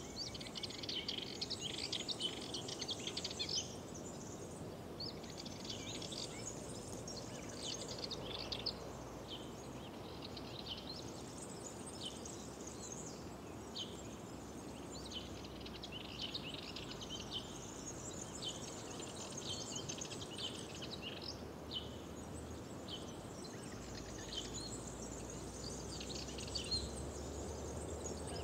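Several songbirds singing, with overlapping chirping phrases that come and go again and again, over a steady low background rush.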